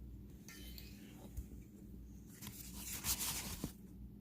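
Packaging rustling and crinkling as items are handled, loudest in a stretch of a second or so past the middle, with a couple of light knocks.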